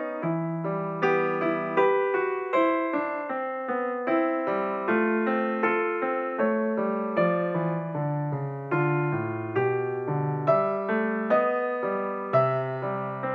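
Background solo piano music: a slow, even run of notes, a little more than one a second, each struck and left to ring and fade.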